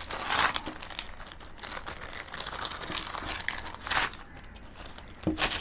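Plastic mailer pouch crinkling as it is handled and opened by hand, in irregular bursts that are loudest about half a second in, at about four seconds and near the end.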